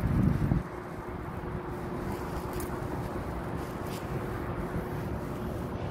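Steady outdoor street noise of traffic with wind on the phone's microphone, starting with a short, louder gust of wind rumble in the first half-second, then an even hiss with a faint steady hum.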